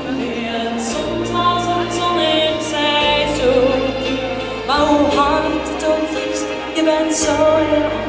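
A slow Dutch pop love song, performed live, between sung lines: a backing track with a steady bass, sustained chords and light cymbal strokes, while a female singer holds drawn-out notes.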